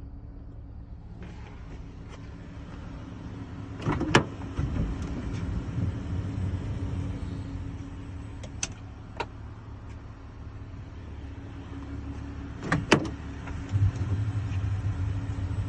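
Dodge Caravan's engine idling with a steady low hum, heard from inside the van. Two sharp knocks stand out, one about four seconds in and one near the end, with a couple of lighter clicks between.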